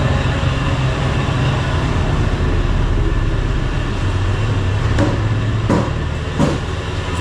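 Steady low engine hum of street traffic, with a few short sharp knocks in the last couple of seconds.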